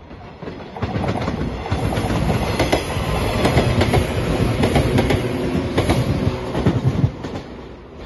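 JR 115 series electric train passing close by, its wheels clattering over the rail joints. It grows loud about a second in and drops off sharply near the end as the last car goes past.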